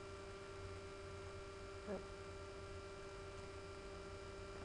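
Steady low electrical hum from the recording chain, with a brief faint sound about two seconds in.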